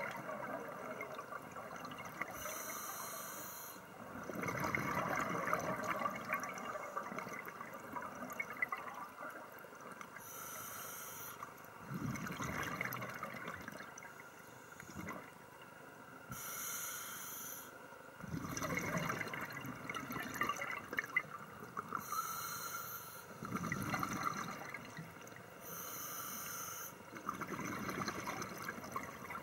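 Scuba diver breathing through a regulator underwater: each breath is a short hiss on the inhale, followed by a few seconds of bubbling exhaust. There are five breaths in all.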